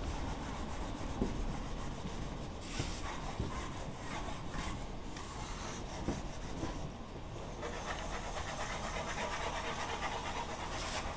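Hand sanding of a wooden kitchen-counter panel: sandpaper rubbing over the surface in quick back-and-forth strokes, in spells with short pauses.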